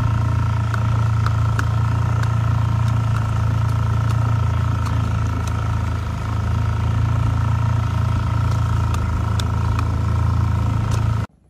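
Vehicle engine running steadily while moving along: a loud low drone with a steady whine above it, cutting off suddenly near the end.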